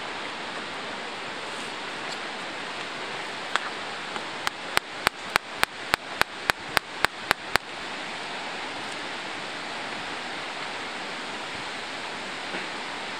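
Steady rushing of flowing stream water. About four seconds in, a quick run of about a dozen sharp, evenly spaced clicks, roughly three or four a second, lasting about three seconds.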